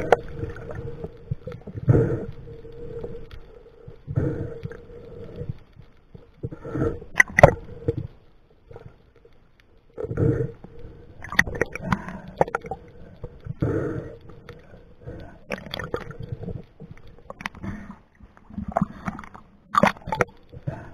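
Muffled underwater sound through a camera housing: irregular swells of water movement and bubbling, with a few sharp clicks.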